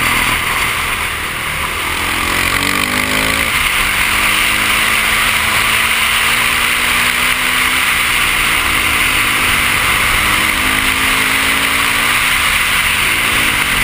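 Supermoto motorcycle engine heard on board under a loud, steady rushing noise. It revs up through the gears, holds a steady pitch, eases off, then picks up again twice.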